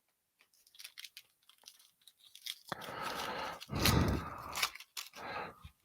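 A trading-card pack's foil wrapper being torn open and crinkled for about three seconds, after a few light clicks of cards being handled.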